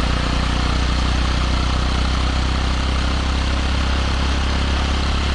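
Kawasaki Eliminator 125's single-cylinder four-stroke engine running steadily, its exhaust picked up close behind the muffler outlet, with an even pitch that neither rises nor falls.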